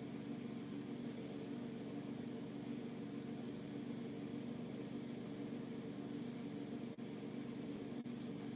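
A steady low mechanical hum with no chick calls. It drops out for an instant twice near the end.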